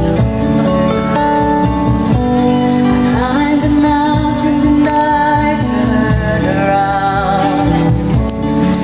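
A woman singing a slow song live, accompanied by strummed acoustic guitars and a small band including keyboard and electric guitar.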